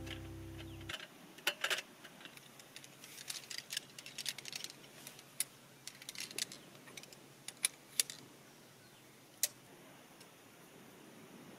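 A held music chord cuts off about a second in, followed by a run of light, irregular clicks and clinks, a dozen or so sharp ticks scattered through the rest.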